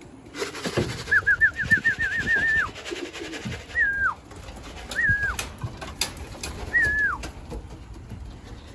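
Racing pigeons calling at the loft: a quick run of about ten high chirps, then three single high calls that rise and drop away, with a few sharp clicks between them.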